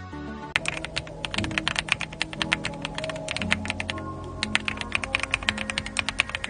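Fast typing on an AULA F75 gasket-mounted mechanical keyboard: a rapid run of key clicks starting about half a second in, over background music.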